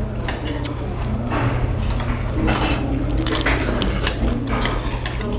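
Metal spoons and chopsticks clinking and scraping against earthenware bowls and side-dish plates during a meal, in many short irregular clicks over a steady low hum.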